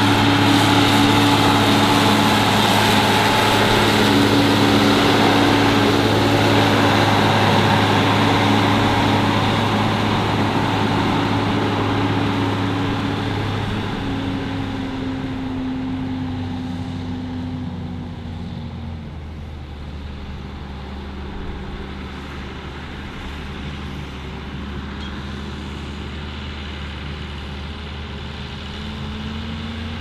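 Farm tractor's diesel engine running. It is loud at first, then fades over about twenty seconds while its note drops lower, and stays steady and quieter after that.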